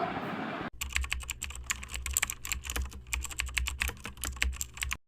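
Rapid, irregular clicks of typing on a keyboard, starting abruptly about a second in and stopping just before the end, over a low hum.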